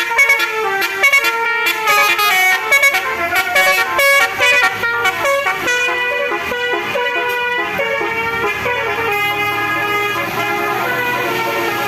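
Basuri telolet musical bus horn playing a quick run of changing notes, moving to longer held notes in the second half.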